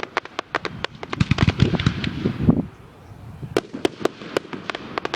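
Fireworks going off: rapid sharp cracks and bangs over a low rumble, thickest about a second in, easing briefly, then another run of cracks near the end.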